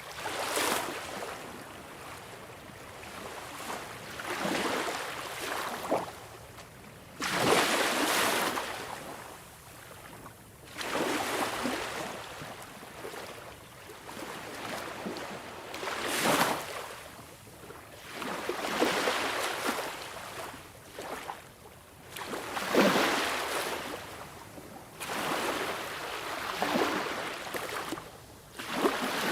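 Sea waves breaking and washing on the shore, each surge swelling and falling away every few seconds, some breaks louder than others.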